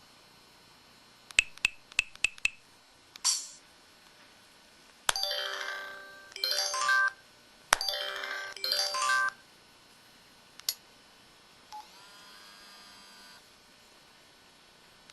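Samsung SPH-X8500 mobile phone playing its built-in key tones and sound effects: a few quick clicks, a short beep, then a doorbell-like electronic chime twice, a single click and a faint short tone near the end.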